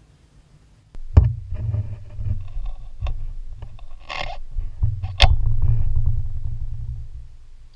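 Rumbling handling noise on the camera microphone as the camera is moved under the engine, with two sharp knocks, about a second in and about five seconds in, and a short scrape in between; it dies away near the end.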